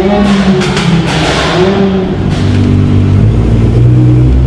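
Modified car engine revving unevenly, its pitch wavering, then settling about halfway through into a steady, deeper engine note that lifts slightly near the end.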